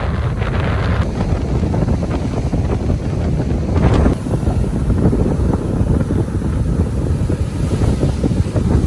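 Strong wind buffeting the microphone as a heavy low rumble that swells and dips with the gusts, with surf breaking underneath; a brief sharper rush about four seconds in.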